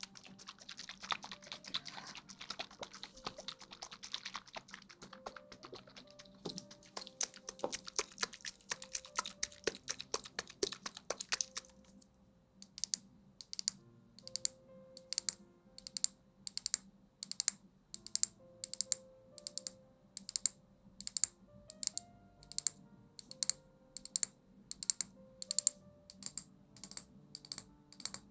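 Close-miked ASMR trigger sounds: dense crackly rustling for the first twelve seconds or so, then crisp, evenly spaced clicks about two a second. Soft background music plays underneath.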